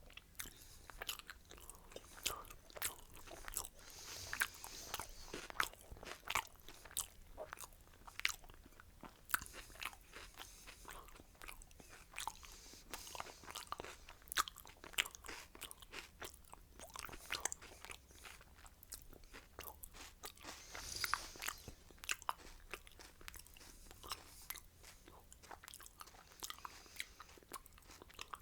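A person chewing and biting food close to the microphone: a steady run of irregular sharp crunchy clicks, denser for a moment about two-thirds of the way through.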